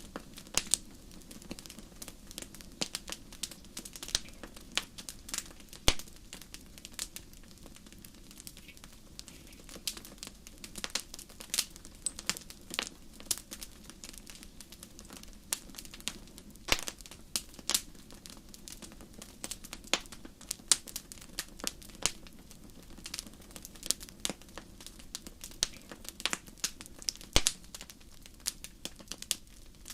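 Wood campfire crackling: a dense, irregular run of sharp snaps and pops, with a few louder pops standing out, about six seconds in and again near the end.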